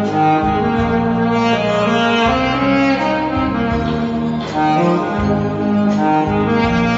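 Saxophone playing a melody of held and moving notes over a backing with a low bass line.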